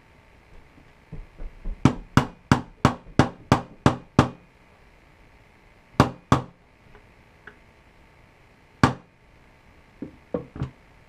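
Small hammer tapping a pin punch to drive the back pin into a rifle's pistol grip. A quick run of about eight sharp taps comes at roughly three a second, then two more, a single tap, and a few lighter ticks near the end.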